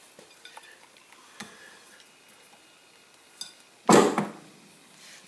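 A few faint metal clicks from a shotgun barrel's extractor being worked back in, then about four seconds in a single loud knock as the upright barrel's breech end is pushed down against the workbench, forcing the extractor past its resistance into its seat.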